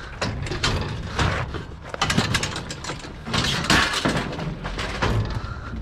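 Irregular knocks, clanks and rattles, typical of scrap metal being handled.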